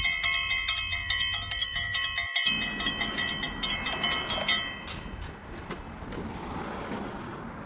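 Bell-like chiming tones ringing together, stopping about five seconds in, followed by a faint even outdoor noise.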